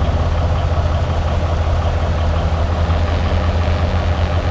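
Heavy diesel engine running steadily, with a deep, even low hum.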